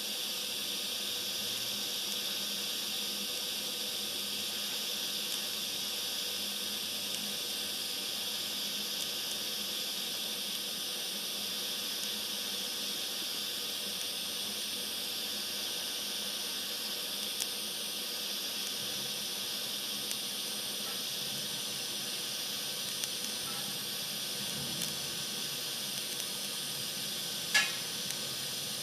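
TIG welding arc hissing steadily. There is one short sharp click near the end.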